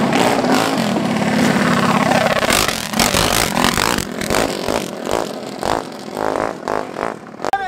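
Two racing mini bikes' engines at full throttle, accelerating hard past and away down the street. The engine sound is loudest over the first three seconds, then fades as the bikes pull into the distance.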